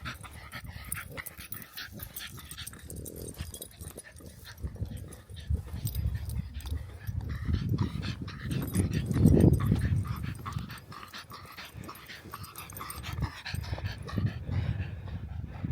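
A dog making small vocal noises, along with scattered clicks and rustling.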